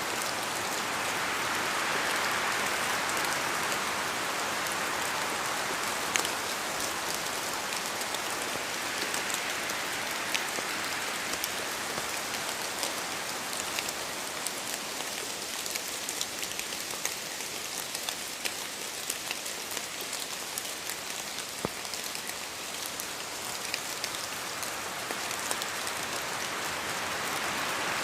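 Steady rain in a forest, with many separate drops falling from the trees ticking sharply through the hiss. The rush swells and eases with the wind, strongest near the start and again near the end.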